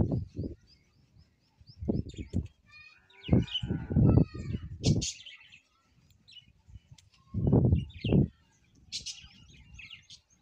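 Small birds chirping repeatedly, over several bouts of low thudding and rustling, which are the loudest sounds.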